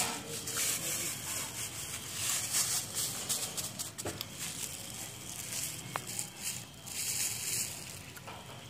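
Rubbing and rustling handling noise from a handheld phone being moved around, coming in waves of hiss with a few soft clicks.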